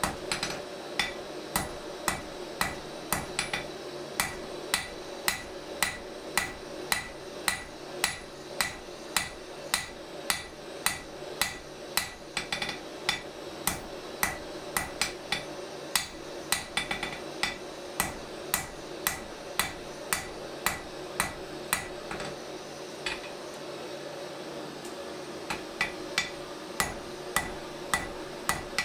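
Hand hammer striking red-hot steel on an anvil while a drawknife blade is forged: steady blows about two a second, each with a short metallic ring. There is a pause of a few seconds near the end before the blows resume, and a steady hum runs underneath.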